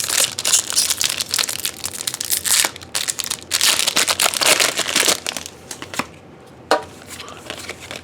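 Foil wrapper of a Pokémon trading-card booster pack being torn open and crinkled by hand. The crackling is dense for about six seconds, then drops away, with one brief rustle near the end.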